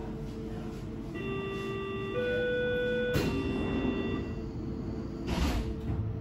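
Three-note electronic chime inside a Berlin S-Bahn class 485 car: a low note, a higher one, then the low one again, each about a second long, starting about a second in. It sounds over the car's steady electrical hum, and a couple of dull knocks come near the middle and near the end.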